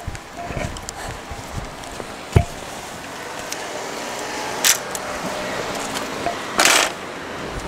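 Handheld camera handling noise while walking, with scattered knocks, one sharp thump about two and a half seconds in, and two short bursts of rustling noise near the end.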